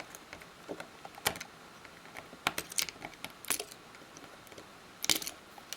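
Light, scattered clicks and taps of a spudger working on the opened iPhone's internals, prying at its small cable connectors, with a brief cluster of sharper clicks near the end.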